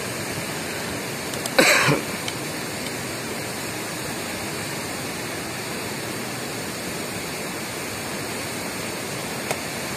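Steady rushing of water pouring through a weir's sluice gates, heard as an even hiss, with one brief cough-like burst about a second and a half in.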